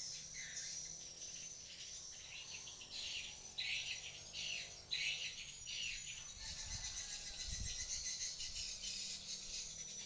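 Swiftlets twittering: rapid high chirps in clustered bursts that thicken into a near-continuous twitter from about six and a half seconds in, over a faint steady high hiss.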